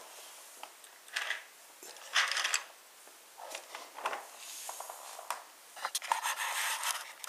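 Plastic toy train engines being pushed along plastic track and handled: a string of short scraping and rubbing noises, the loudest a little after two seconds in.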